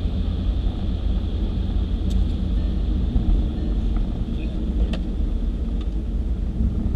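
Steady low rumble of road and engine noise inside the cabin of a moving police patrol car, with a faint click about two seconds in and another about five seconds in.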